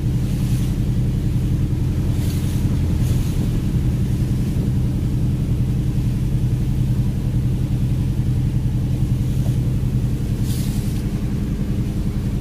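Fishing vessel's diesel engine running steadily at speed under way, a deep even drone. A few short hisses rise above it now and then.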